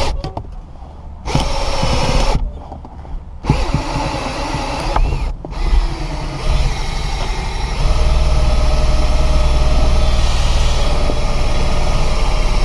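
Cordless drill driving a windshield wire-out winder to pull the cutting wire through the urethane bead. It runs in short bursts early on, a short one about a second in and another from about three and a half seconds, then a long steady run from about eight seconds in.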